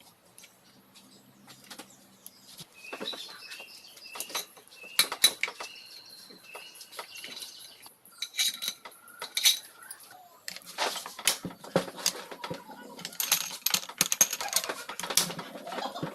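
Metal engine parts and hand tools clinking and clattering as they are handled, with a dense run of knocks and rattles in the second half.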